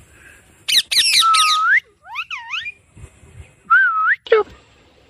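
Pet parrot whistling and squawking: a short raspy burst about a second in that runs into a long rising whistle, then two quick up-and-down whistled notes, and a wavering whistle near the end.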